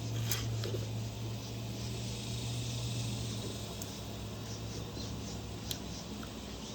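Quiet rural outdoor background with faint insect sounds, a steady low hum that fades out about halfway through, and a few small clicks.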